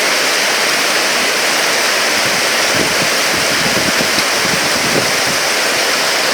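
Severe storm wind rushing in a steady, loud wash, with gusts buffeting the microphone from about three seconds in.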